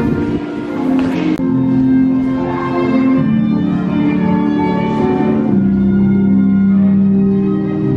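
Violin playing a slow melody of long held notes, amplified through a small speaker. Passers-by talk until about a second and a half in.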